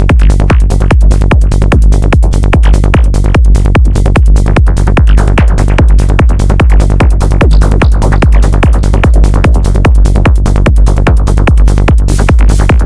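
Dark psytrance played by a virtual modular synthesizer patch in VCV Rack: a deep pulsing bass under a fast, evenly repeating train of sequenced synth hits, steady throughout.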